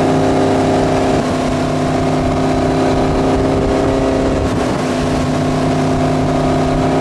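Towboat's inboard engine running at a steady towing speed, heard from on board, over the rush of the wake water.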